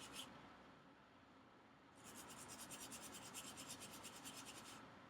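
Faint, rapid scrubbing strokes on a circuit board, cleaning off solder flux residue with alcohol; a brief burst at the start, then a steady run of fast strokes from about two seconds in that stops near the end.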